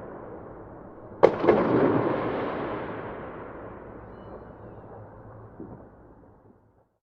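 Fireworks: a sharp bang about a second in, quickly followed by another, then a long rolling echo that slowly fades away, with one faint pop late on. The sound falls to silence just before the end.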